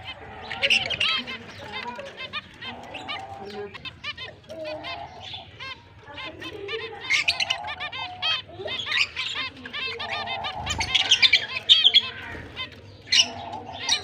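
Several caged zebra finches calling: a dense stream of short, rapid chirps with nasal beeping calls mixed in, loudest a few seconds before the end.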